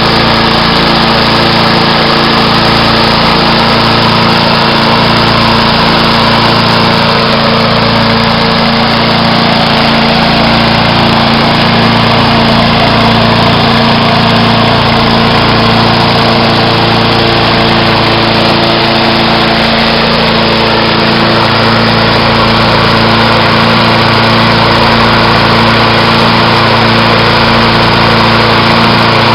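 The Suzuki four-stroke engine of a 1987 Toro GTS Model 20624 walk-behind lawn mower, running at a steady, even speed.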